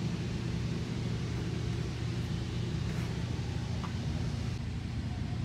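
Commuter train heard from inside a Nippon Sharyo bi-level coach car: a steady low rumble with a few faint ticks.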